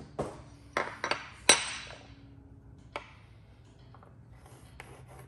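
Small hard parts clicking and clinking as they are handled and set down on a wooden pinball playfield, with one louder ringing clink about one and a half seconds in and a single click near the middle.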